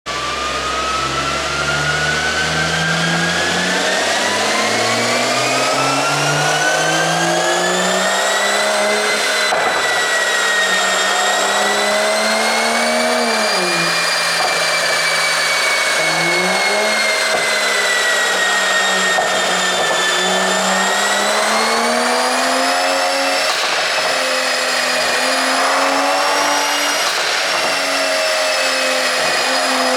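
Mercedes-Benz E450 4Matic Cabriolet engine and tuned exhaust under way, its note starting as a low rumble and then slowly rising and falling in pitch as the car speeds up and eases off.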